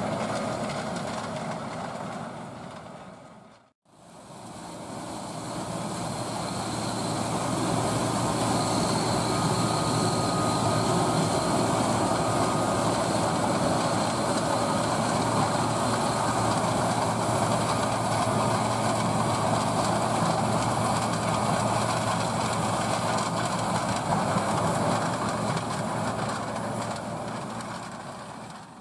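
Heavy farm machinery running steadily with a rattling, noisy drone. It fades out briefly about four seconds in, then comes back and holds steady.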